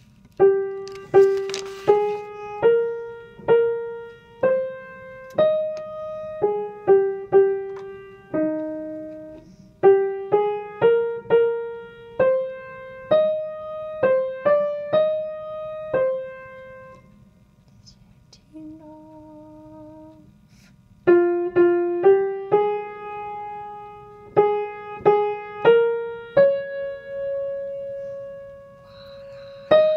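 Piano playing a choir's soprano part as a single-note melody, one struck note at a time. The melody pauses briefly about two-thirds of the way through, with only a soft held note sounding, and then picks up again.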